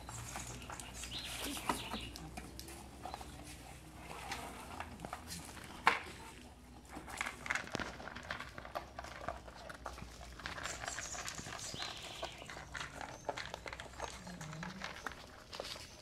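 Two pit bull puppies eating dry kibble from their bowls: irregular crunching and clicking of teeth on the food and dishes, with one sharp knock about six seconds in.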